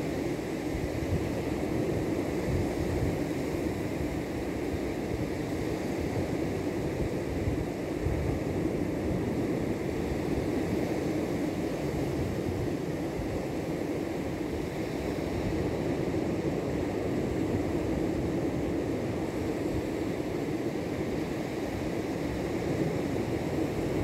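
Sea surf breaking on a sandy beach, with wind rumbling on the microphone: a steady rushing noise with no pauses.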